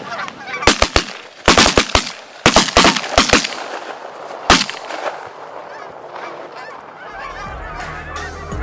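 A volley of shotgun blasts from several hunters: about a dozen shots in quick bunches over the first four and a half seconds, with geese honking throughout. Low wind rumble on the microphone comes in near the end.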